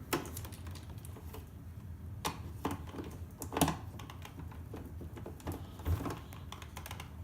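Irregular clicks and scrapes of a screwdriver bit working at small screws in an electronics box's casing, the bit not gripping the tamper-proof screws. A steady low hum runs underneath.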